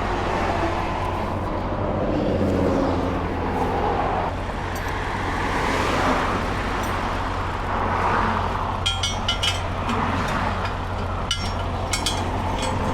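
Interstate traffic passing close by: a steady rush of tyres and engines with a low rumble underneath, swelling and easing as vehicles go by. From about two-thirds of the way in, a run of light, sharp clicks sounds over it.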